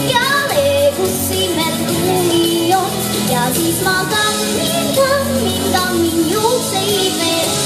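A young girl singing a pop show tune into a microphone over a recorded instrumental backing track, her melody rising and falling in short phrases.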